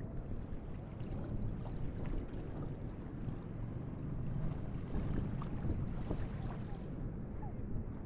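Small waves running up the beach and washing back, a steady low wash of surf that swells a little around the middle.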